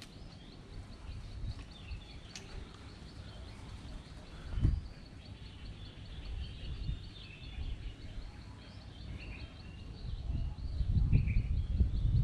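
Outdoor ambience: small birds chirping now and then over a steady low rumble. There is one dull thump about a third of the way in, and the rumble grows louder near the end.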